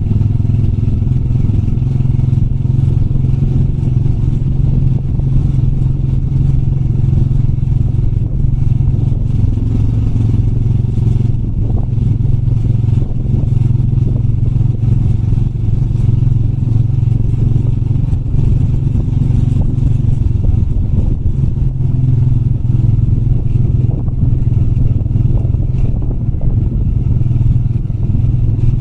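Motorbike engine running at low, fairly steady revs, with small rises and falls in pitch, and some rattling from the bike.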